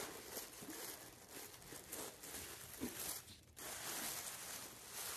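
Tissue paper tearing at its sticker seal and rustling and crinkling as it is pulled open by hand, fairly soft, with a short lull about three and a half seconds in.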